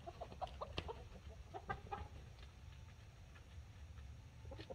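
Buff Orpington hens clucking softly: a run of short clucks in the first two seconds, then fewer, and more again near the end.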